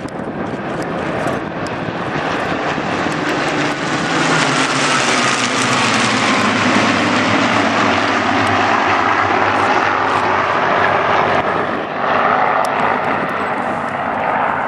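A massed formation of Supermarine Spitfires flying past, the combined drone of their V12 piston engines growing louder over the first few seconds and staying loud, with a faint whine that slides down in pitch as they pass.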